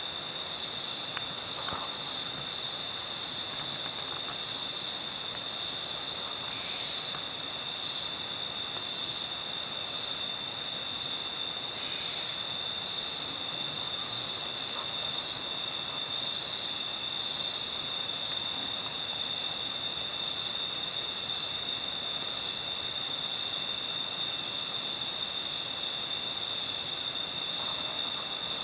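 Steady, high-pitched drone of many insects calling together, a forest insect chorus with no breaks.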